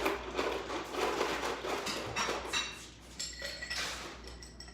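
Irregular clatter and knocking of dishes and utensils, with a few light clinks.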